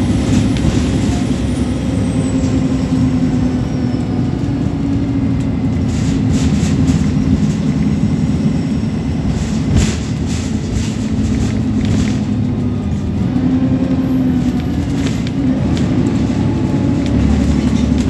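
Alexander Dennis Enviro300 single-deck bus heard from inside the saloon while driving at speed: a steady diesel engine drone mixed with road noise. A thin high whine glides down and fades after about three seconds, and a single sharp knock comes about halfway through.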